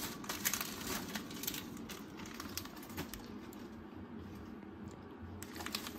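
Snack wrappers rustling and crinkling in the hands, with scattered light clicks and taps as packages are handled, fading for a couple of seconds in the second half.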